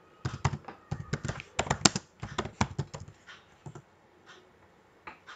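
Computer keyboard keys being typed in a quick run of clicks, stopping about four seconds in, with one more keystroke near the end.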